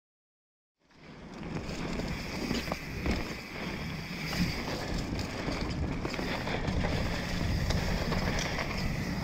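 YT Capra carbon mountain bike riding fast down a dirt woodland trail: wind buffets the microphone while the tyres roll over dirt, roots and dead leaves, with scattered small knocks from the bike. The sound fades in about a second in, after silence.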